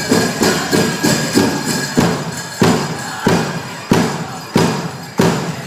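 Powwow drum group playing a chicken dance song. The big drum starts in a fast, steady beat under the singers. About two seconds in it changes to hard single strikes, roughly one every two-thirds of a second, with bells jingling over it.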